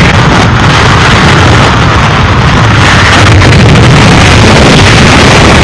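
Hurricane-force wind and driving rain making a loud, steady rushing noise, with deep wind rumble buffeting the microphone.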